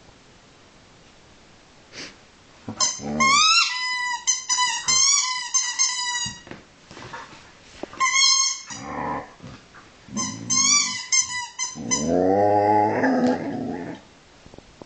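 Border collie puppy 'singing': three runs of high, quick, gliding whines and yips, then a lower, longer moaning call near the end.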